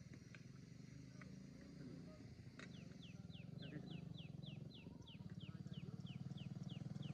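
Low, steady rumble of a portable LPG cylinder stove's burner heating a cooking pot. A few seconds in, a run of short, faint falling chirps from insects starts up, about three a second.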